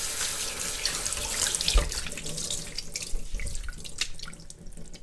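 Kitchen faucet running into a stainless-steel sink while hands are washed under the stream, with small splashes and clicks; the flow quietens near the end.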